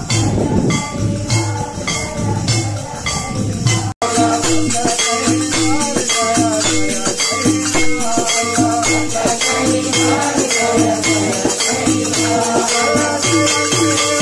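Devotional bhajan music: voices singing over a steady beat of hand clapping, jingling percussion and a drum. It breaks off abruptly about four seconds in and resumes at once.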